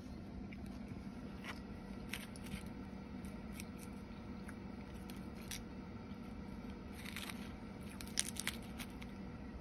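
Someone eating crisp lettuce salad: scattered short crunches and clicks, a cluster of them near the end, over a steady low hum in the truck cab.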